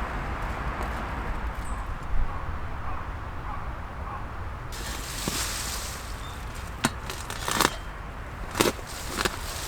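Steady low background noise, changing abruptly about halfway, then a few sharp, irregular clicks and knocks in the last few seconds.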